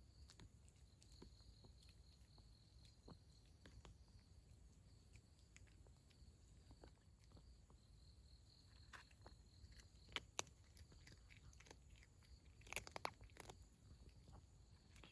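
A cat eating dry kibble: faint, scattered crunching and chewing clicks, with a couple of louder crunches about ten seconds in and a cluster of them around thirteen seconds.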